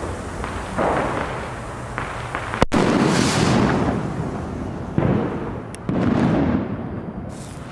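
Firecrackers going off: one sharp crack a little under three seconds in, among several heavier booms that echo and die away slowly, two of them about five and six seconds in.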